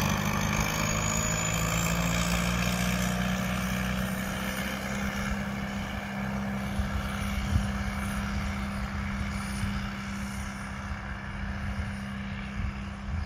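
Allis-Chalmers D17 diesel tractor engine running steadily under way, growing gradually fainter as the tractor pulls away.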